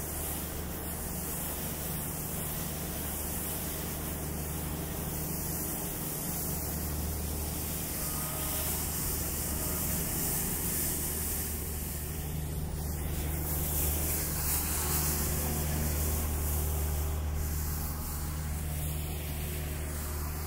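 Steady low rumble of traffic under a hiss of tyres on wet pavement. The hiss swells in the second half as a vehicle passes.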